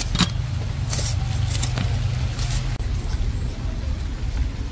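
A steady low rumble, with a few short sharp clicks of a small knife cutting through winged beans in the first half. The rumble thins about three seconds in.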